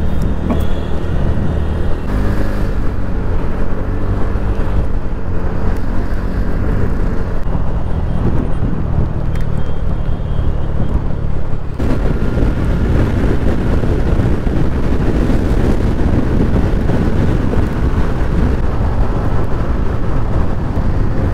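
Motorcycle ridden at speed along a highway: a steady engine hum with road noise. About twelve seconds in, the sound turns abruptly rougher and heavier.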